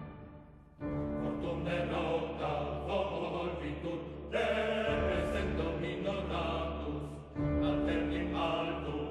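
Background music: one piece fades out, and less than a second in a choral piece with voices singing begins, growing louder in steps.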